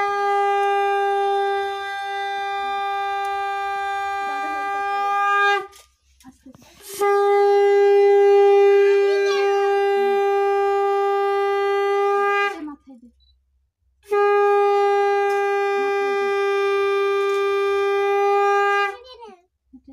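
Conch shell (shankha) blown in three long, steady blasts of about five seconds each, with short breaks between them.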